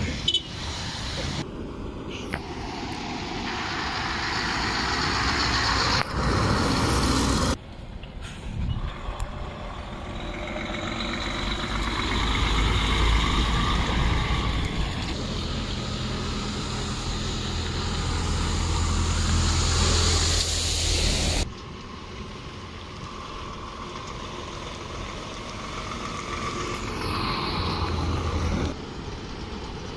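Heavy diesel lorries running and pulling past, one growing steadily louder for over ten seconds in the middle, with loud hisses of air brakes.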